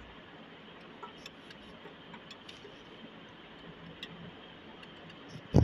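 Faint scattered metal clicks from a wrench turning the nut on a homemade puller's threaded rod, drawing the cylinder sleeve out of a generator engine. A loud metallic clank with ringing comes right at the end.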